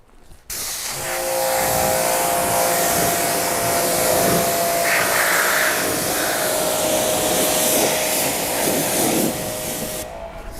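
Pressure washer spraying, a steady loud hiss of water with the pump motor's whine under it. It starts about half a second in and eases off near the end.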